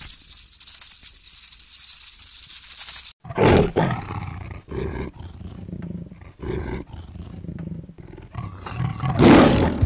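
A high hiss for about three seconds, then a tiger growling and roaring in a string of deep, rough calls, the loudest near the end.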